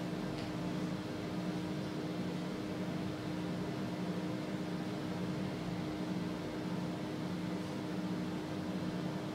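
Six-axis robot arm's joint motors humming steadily as it moves a pen along a drawing path, with a constant low tone and a lower hum that swells and eases as the motion changes.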